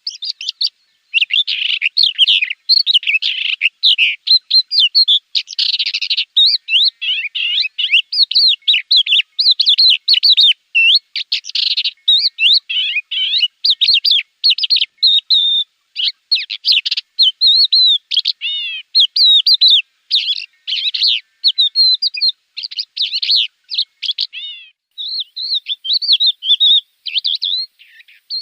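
Javan bush lark (branjangan) singing: a fast, almost unbroken run of varied high chirps, sweeps and trills with only brief pauses.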